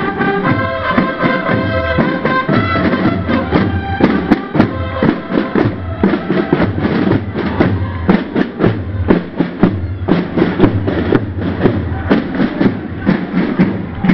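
A procession band of brass and drums. Brass instruments hold sustained notes for the first few seconds. Then the drums take over with a fast, steady marching beat of many strokes a second.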